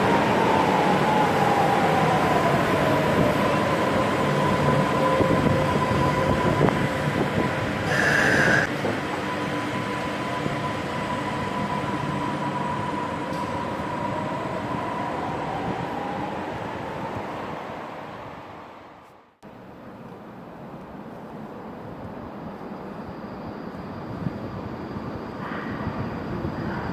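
Stuttgart Stadtbahn light-rail train with its electric traction whine falling in pitch, then rising again as the running noise fades away. A short higher-pitched tone sounds about eight seconds in. The sound drops out abruptly near the two-thirds mark and gives way to quieter platform ambience.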